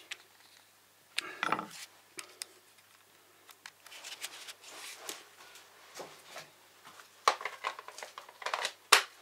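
Handling noise from working on a small cordless mini chainsaw at a workbench: a spanner on the bar nut, then the saw being lifted and moved, with scattered clicks and knocks of metal and plastic. The sounds bunch up in the last two seconds, the sharpest knock near the end.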